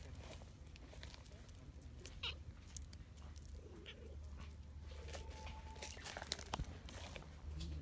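A stray cat gives a few short meows, with faint rustles and clicks of dry leaves around it.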